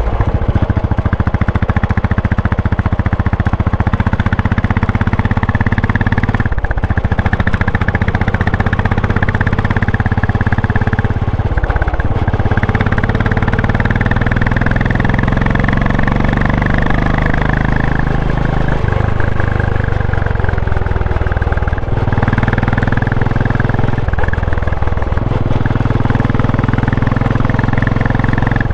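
Royal Enfield Classic 500's single-cylinder engine pulling steadily under way. Its note breaks briefly several times and resumes at a new pitch, like gear changes.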